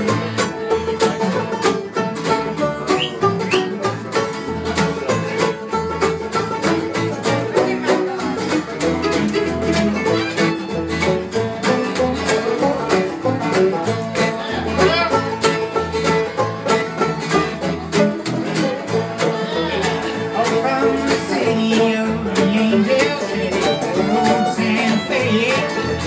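Acoustic string band playing an instrumental break in bluegrass style: two fiddles carrying the melody over banjo and acoustic guitars strumming a steady beat.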